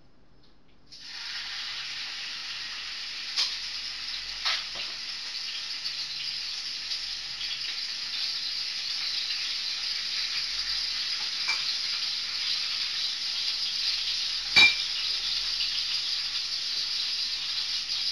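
Hot oil sizzling in a frying pan, starting suddenly about a second in and growing slightly louder, with a few sharp clicks of utensils or dishes, the loudest near the end.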